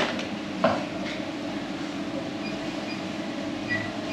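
Supermarket ambience: a steady hum, with two sharp knocks in the first second and faint short beeps in the background later on.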